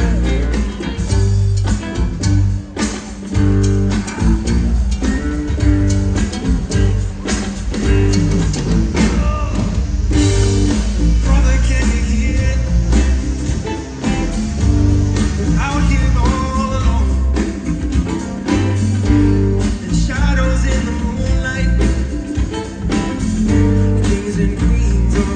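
Live rock band playing loudly: hollow-body electric guitar, drum kit, congas and keyboards over a steady, heavy beat, with a male lead vocal singing at the microphone.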